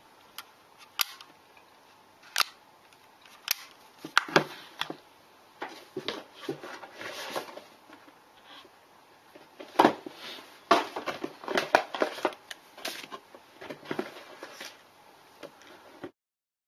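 Handling sounds of a small camcorder and its accessories on a wooden desk: scattered sharp clicks and knocks as plastic parts are handled and set down, mixed with short rustles and crinkles of plastic bags, busiest in the second half. The sound cuts off abruptly just before the end.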